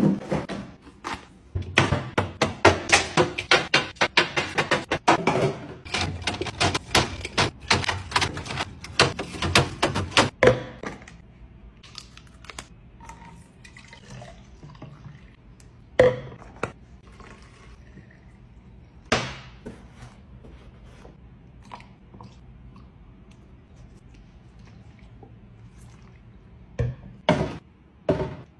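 Groceries handled and set down on a wooden table: a quick, dense run of knocks and clicks for about ten seconds. Then quieter juice pouring from a bottle into a glass carafe, with two single sharp knocks, and near the end a few knocks as cartons are set into a fridge door shelf.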